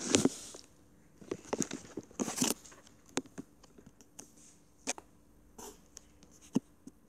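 Irregular small clicks and rustling: a cat crunching dry kibble at its bowl, mixed with fingers rubbing over the phone's microphone.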